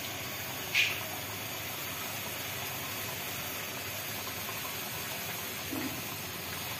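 Thick creamy egg korma gravy boiling in a metal pan: a steady bubbling hiss, with one short, sharp louder sound about a second in.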